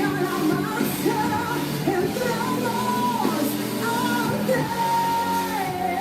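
Music: a song with a sung melody over instrumental accompaniment.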